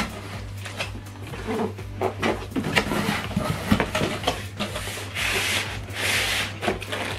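Cardboard box and packing being handled: flaps rubbing and knocking, and polystyrene foam and wrapping scraping. A longer rustling scrape comes about five seconds in.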